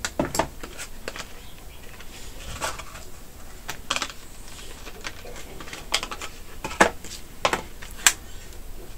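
Thin clear plastic blister packaging being handled and pried open to free an SSD: scattered clicks and crackles of plastic, with sharper snaps a little before 7 s and about 8 s in.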